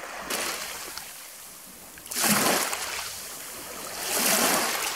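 Small waves washing in over a pebble shore in shallow water, with two louder surges about two seconds apart, the second near the end.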